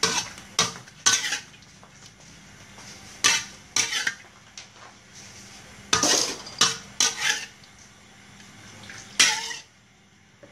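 Metal spatula scraping and clanking against a steel wok in a string of short, separate strokes, the loudest bunched about six and nine seconds in.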